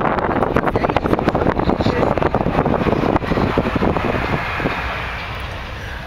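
Wind rushing and crackling on the microphone inside a moving car, over the car's own running and tyre noise. The rush eases off after about four and a half seconds.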